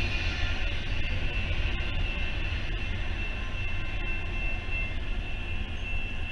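Train rumbling by, a steady low rumble with a faint, steady high tone riding over it.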